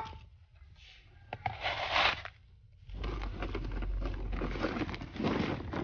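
Gritty granular potting mix being poured and scraped into a plant pot: a short rustle, then a run of dense crackling and scraping with many small clicks as the grains settle.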